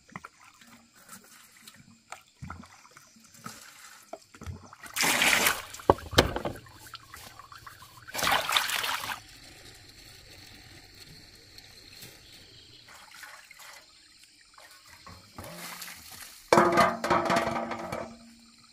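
Water splashing and pouring in two bursts, about five and eight seconds in, with a sharp click between. A short pitched sound follows near the end.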